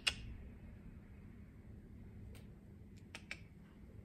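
A few short, light clicks, one right at the start and three more near the end, two of them close together, over a low steady room hum.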